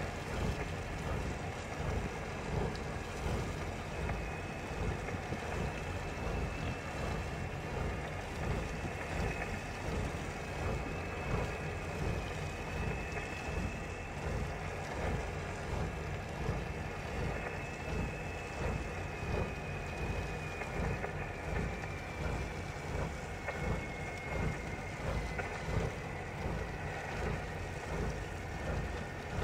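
Fishing boat engine running steadily at sea, a dense low rumble with a faint high whine that drifts slowly down in pitch in the second half, with wind buffeting the microphone.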